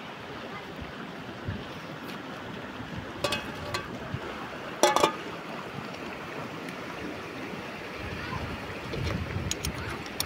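Steady rush of a flowing river, with a few sharp knocks, the loudest a quick double knock about five seconds in.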